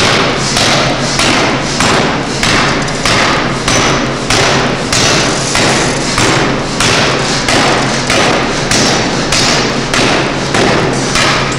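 A 1-ton pneumatic forging hammer pounding a red-hot metal bar in a steady, even run of heavy blows, about three every two seconds, over a steady low hum.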